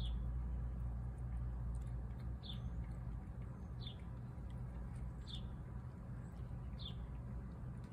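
A bird calling: a single short high chirp that falls in pitch, repeated about every one and a half seconds, over a steady low rumble.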